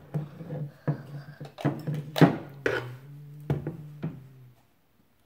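Hard plastic clicks and knocks as a toy's plastic gearbox housing is handled and set down on a wooden table, over a steady low hum; the sound cuts out suddenly near the end.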